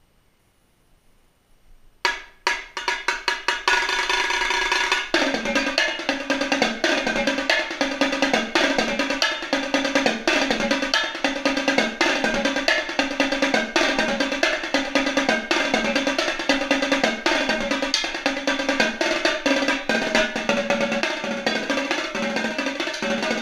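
Marching tenor drums (a five-drum quint set) played with sticks: after about two seconds of quiet, the playing starts with a few spaced strokes, then runs into a fast, continuous marching cadence moving around the differently pitched drums from about five seconds in.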